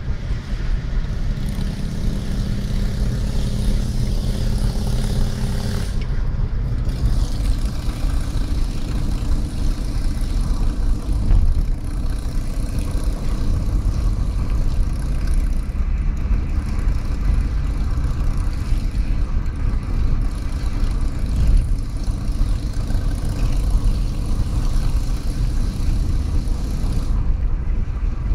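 A motor vehicle running at steady speed: continuous low engine and road rumble with wind noise, and a steady engine hum for a few seconds early on.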